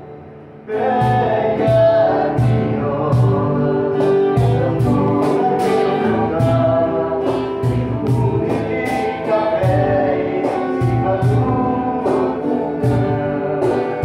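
Acoustic guitars strummed in a steady rhythm, with a man singing over them. The playing comes in after a brief lull less than a second in.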